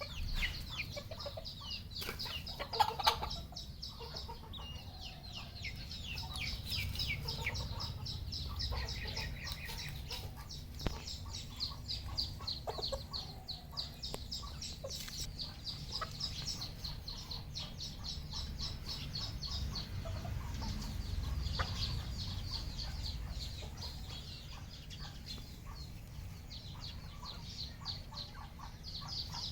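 A red junglefowl flock clucking and calling, with rapid high-pitched peeping throughout and a louder burst of calls about three seconds in.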